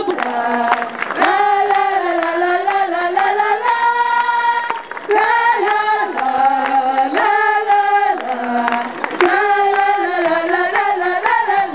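A group singing a marcha popular song together in two parallel melodic lines, over a steady beat of percussive hits.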